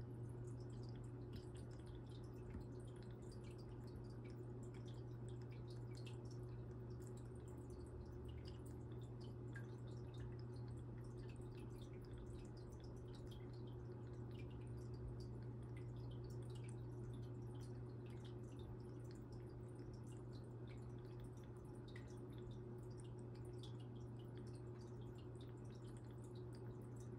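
Aquarium filter running: a faint steady hum with many small, irregular drips and trickles of water.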